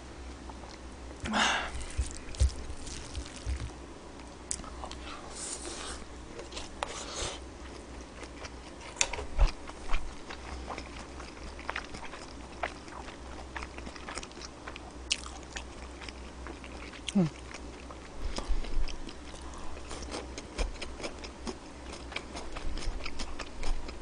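Close-miked chewing and biting of a mouthful of pork belly and bean sprout rice, with scattered short clicks and mouth smacks, a few of them louder.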